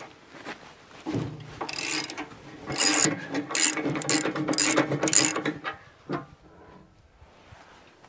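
Ratchet wrench clicking in a run of short bursts, about one to two a second, as bolts on a wood chipper's rotor housing are worked loose to open it.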